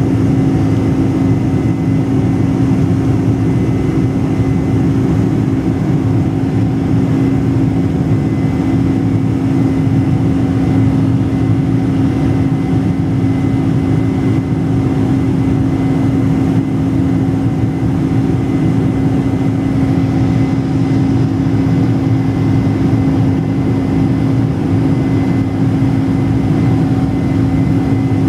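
Boeing 747-400's General Electric CF6-80C2 turbofan engines heard from inside the cabin in the climb after takeoff: a steady engine drone with a strong low hum, a faint higher whine and the rush of air.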